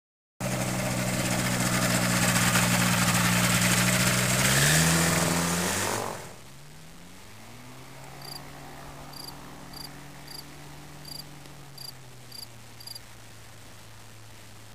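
Ultralight trike's engine and propeller running loudly up close, rising in pitch near the middle as it revs up. After a sudden drop the same engine runs steadily, faint and far off, with a high chirp repeated about eight times over it.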